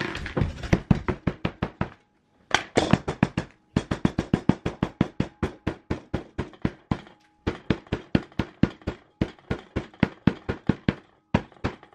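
A hammer striking a block of dry ice again and again, about six quick blows a second, in runs broken by short pauses.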